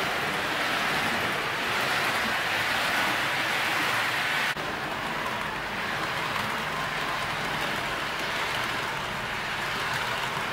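HO-scale model train rolling along the track: a steady rushing hiss of metal wheels on rails and the locomotive's motor, broken by an abrupt cut about four and a half seconds in.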